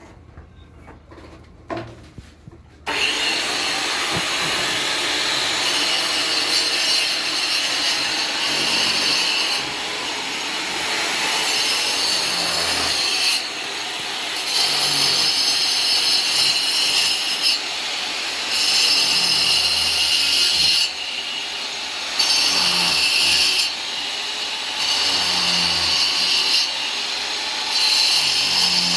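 A power tool starts about three seconds in and runs continuously at high speed, its whine and grinding noise shifting every second or two as it bites into the material and eases off.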